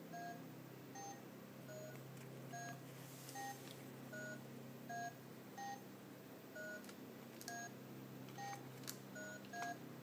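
Red toy phone's keypad beeping as a toddler presses its buttons: about a dozen short dialing-style beeps, each two tones at once, the pitch changing from beep to beep, coming a little under a second apart, with a few faint clicks near the end.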